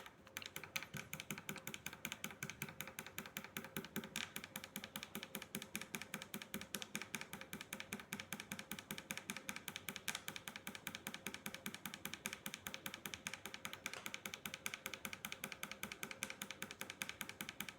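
A small tactile micro switch (tact switch) on a circuit board being pressed over and over with a finger, clicking rapidly and evenly, several clicks a second. It has been sprayed with WD-40 and is being worked to clear dust and oxidation from its contacts so that it conducts again.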